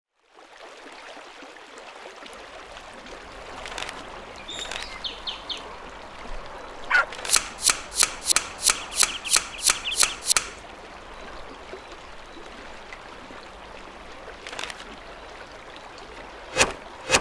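A beaver's flat tail slapping the mud over and over, about three slaps a second for some three seconds, starting again just before the end; a cartoon sound effect. Under it, a steady pond-and-stream ambience with faint bird chirps.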